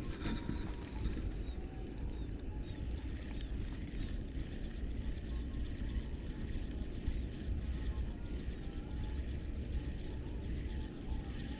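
Insects trilling steadily in a high, pulsing band, over a constant low rumble.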